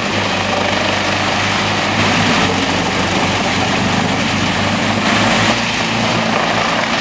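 Large crane-fed wood chipper running steadily under load: a constant deep engine hum under a loud spread of chipping noise.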